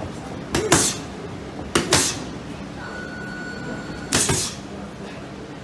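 Boxing gloves hitting focus mitts in three quick double-punch combinations, each pair of smacks a fraction of a second apart.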